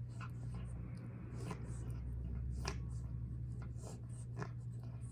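Steady low hum with faint, irregular small clicks and scratchy rustles over it, a few a second.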